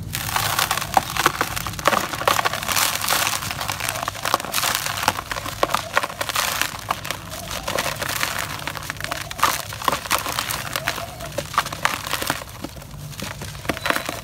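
Hands crushing and crumbling dry, gritty cement clumps over a plastic tub: a dense, continuous crunching crackle of many sharp clicks, with loose grit and powder falling into the tub.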